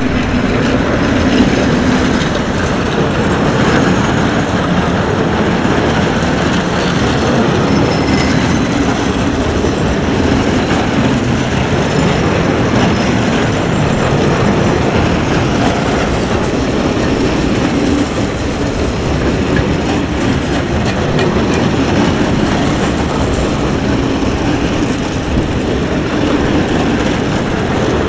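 Freight train of open wagons rolling past close by: a loud, steady rumble of steel wheels on the rails.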